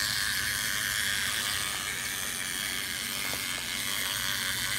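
Battery-powered toy fishing game whirring steadily as its small motor and gears turn the spinning pond of plastic fish, with a faint tick or two.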